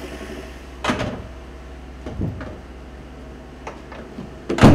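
A few dull knocks over a steady low hum. The knocks come about a second in and a little after two seconds, and the loudest comes just before the end.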